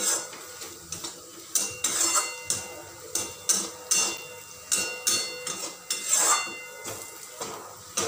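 Steel spatula clanking and scraping against a steel kadhai while stirring onions, garlic and chilli powder frying in oil: irregular metallic strikes, about two a second, each with a brief ring.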